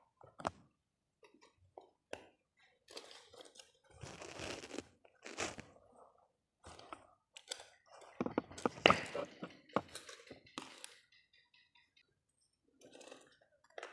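Plastic blade of a desk fan being twisted and pulled off its motor shaft by hand: irregular crunching, scraping and knocking of plastic parts against each other and the plastic grille, loudest about nine seconds in.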